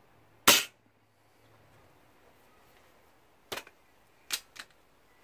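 Single shot from a .177 Weihrauch HW99S spring-piston air rifle: one sharp, loud crack about half a second in, dying away quickly. A few lighter clicks follow about three seconds later.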